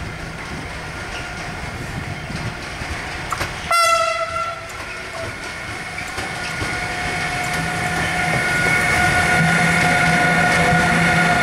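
Pair of ÖBB class 1293 Siemens Vectron electric locomotives approaching with a loaded freight train: a short horn blast about four seconds in, then a steady whine from the locomotives that grows louder as they draw near, over the rumble of wheels on rail.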